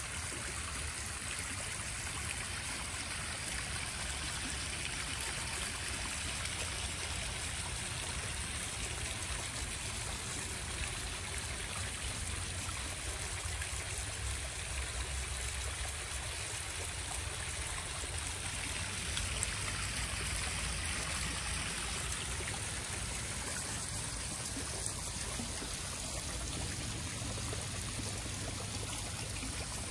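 Small stone waterfall on a backyard koi pond, water trickling and splashing steadily over the rocks into the pond.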